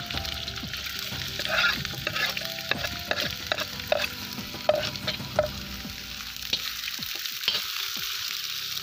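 Sausage pieces and sliced onion sizzling in hot oil in a cast-iron kazan, with a metal skimmer clinking and scraping against the pan as they are stirred. The clinks are thickest in the first half.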